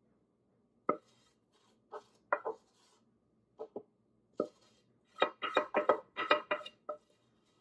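Long wooden spoon knocking and scraping inside a metal saucepan, working out the last sticky toffee syrup. Scattered knocks at first, then a quick run of about ten in the last two seconds, each with a brief ring from the pan.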